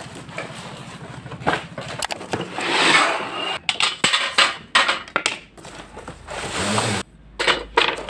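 A cardboard shipping box being torn open and handled: rustling and scraping of cardboard, swelling into a long rasp about three seconds in, with several sharp knocks as the parts are moved.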